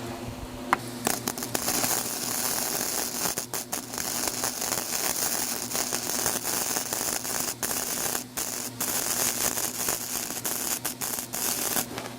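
Flux-core wire-feed welder arc crackling on 16-gauge steel exhaust pipe, starting about a second in, with a few brief breaks in the arc and cutting off near the end.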